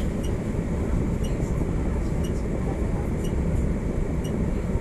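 Steady low rumble in the driver's cab of a coupled pair of PCC trams standing at a signal, with a faint tick about once a second.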